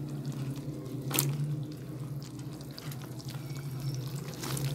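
Spiced tomato masala sizzling gently in oil in a nonstick wok, a faint crackle of small pops, with a couple of brief knocks as sliced eggplant goes into the pan, about a second in and again near the end.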